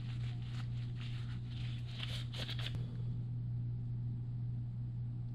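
Gloved hands wiping and handling a motorcycle rear brake caliper with a rag: light rustling and small clicks for about the first three seconds, then only a steady low hum.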